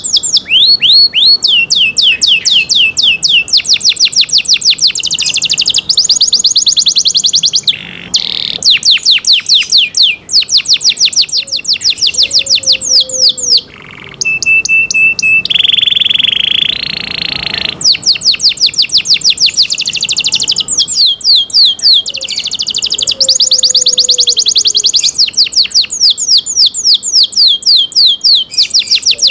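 Domestic canary singing a long song of rapid trills: quick down-slurred notes repeated several times a second, in runs that change speed and pitch. About halfway through come a short steady whistle and a held rolling note before the fast trills return.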